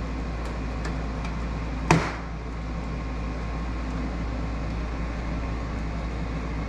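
One sharp plastic click about two seconds in, as a retaining clip of the Corvette C8's front grille insert pops loose under a hand pull, with a few faint ticks before it, over a steady low hum.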